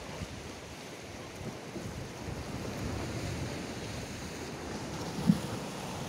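Wind on the microphone over surf washing on a rocky shore, a steady rushing noise. A single brief low bump about five seconds in is the loudest sound.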